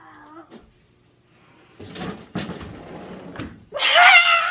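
Shuffling and a sharp clack at the patio door, then near the end a cat's loud, high, wavering meow.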